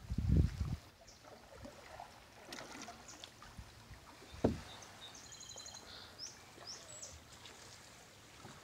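Canoe sounds on calm water: low bumps in the first second and a single sharp knock about four and a half seconds in. Later, a few high, short bird chirps.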